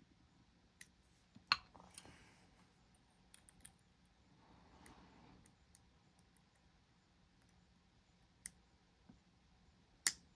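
Pick and tension wrench working the pins of a dimple lock: scattered small metallic clicks and faint scraping, with sharper clicks about a second and a half in and near eight and a half seconds, and the loudest click near the end.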